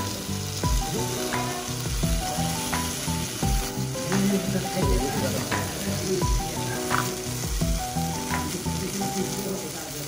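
Food sizzling and frying, a continuous crackling hiss, under background music with a steady beat.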